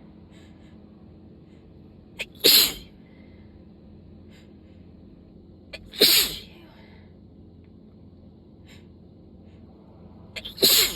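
A person sneezing three times in a sneezing fit, the sneezes about four seconds apart, each with a short sharp sound just before it.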